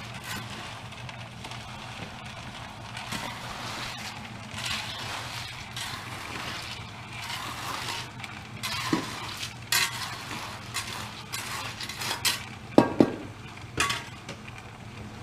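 Hand tools scraping and stirring through a wet sand-and-cement mix, with a few sharp clinks and knocks in the second half, the loudest about two seconds before the end. A steady low hum runs underneath.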